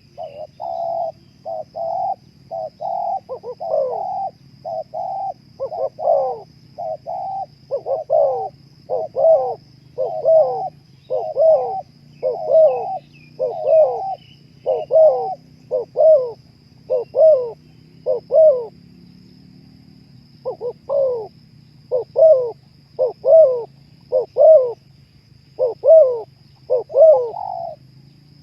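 Spotted dove (terkukur) cooing over and over, a run of short coo notes about one a second, with a brief pause about two-thirds of the way through.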